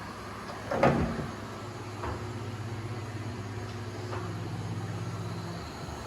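Heat gun running steadily on low heat with a low hum, one sharp knock about a second in and two lighter knocks later.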